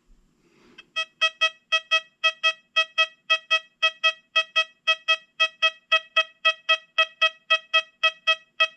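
XP Deus 2 metal detector sounding its target tone for a 1921 Morgan silver dollar, its response to a large silver coin. The tone is a run of identical short beeps, about four a second, starting about a second in.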